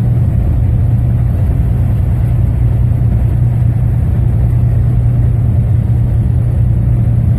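Semi truck's diesel engine and road noise heard from inside the cab while cruising on the highway: a steady, unchanging low drone.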